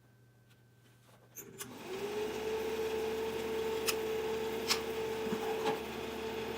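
An 8mm film projector switched on about a second and a half in: a click or two, then its motor spins up quickly and runs with a steady mechanical hum, with a few sharp clicks over it.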